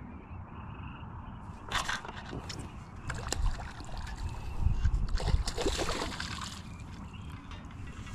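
A hooked crappie splashing at the water's surface as it is reeled in and swung out of the water, a run of irregular splashes that is loudest in the middle.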